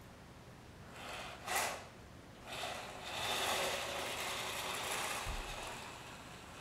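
Small hobby robot's geared DC drive motors whirring as it drives across a hardwood floor: a short burst about a second in, then a longer run of about three seconds starting near the middle, easing off near the end.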